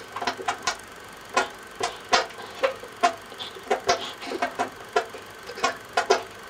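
A run of about twenty short knocks and clicks at an uneven pace, made as hand-made sound effects.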